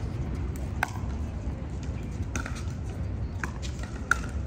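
Pickleball paddles hitting a plastic ball: a sharp pop a little under a second in, then more pops about a second apart in a rally, the loudest near the end, over a steady low rumble.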